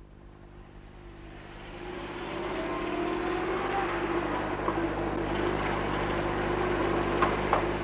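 A car driving by amid street traffic. The engine and road noise swell about two seconds in and hold steady, with two short sharp knocks near the end.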